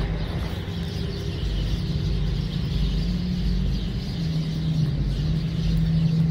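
Steady outdoor background noise: a constant low hum with rumble underneath and a higher hiss over it.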